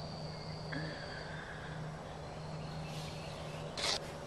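Summer garden ambience: a steady low hum under an insect's high, steady buzz that stops a little over a second in, with a brief rustle near the end.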